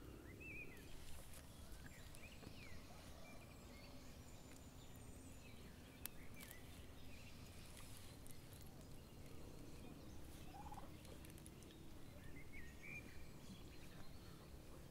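Faint bird calls every few seconds over a quiet, steady outdoor background, likely village fowl.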